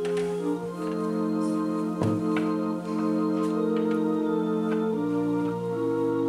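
Organ playing slow, held chords that change every second or so. A few light clicks sound over it, the sharpest about two seconds in.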